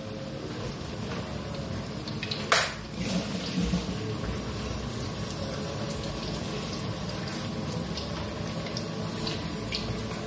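Broth bubbling at a steady boil in a pan on a gas stove. There is a single sharp click about two and a half seconds in.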